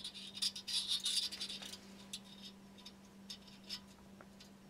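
Light clicks and scratching of fingers handling small porcelain parts, densest in the first two seconds, then a few scattered ticks. A faint steady electrical hum lies underneath.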